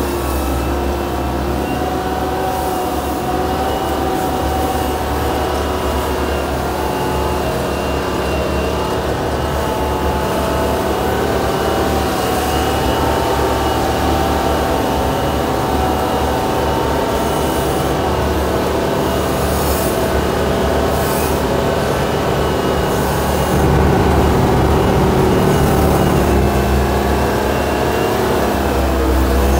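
Heavy scraper's diesel engine running steadily under load, heard from inside the cab, with a thin, steady high whine above the engine note. It gets a little louder about three quarters of the way through.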